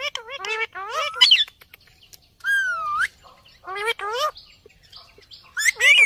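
Indian ringneck parakeets chattering: about five bursts of high-pitched, speech-like calls whose pitch wavers up and down, separated by short pauses.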